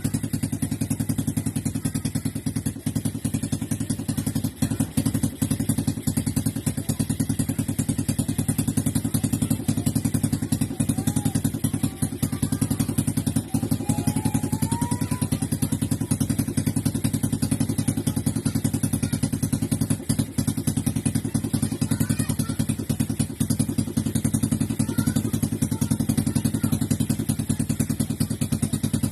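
Old motorcycle engine idling steadily with a fast, even putter.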